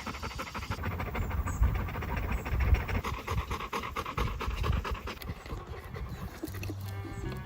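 Dogs panting quickly and steadily; the dogs are thirsty.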